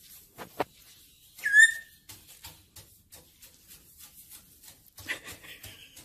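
Black-headed caique gives one loud whistle that drops in pitch and levels off, about a second and a half in, followed by a string of light taps as it hops about on a wooden dresser top, and a short scratchy call near the end.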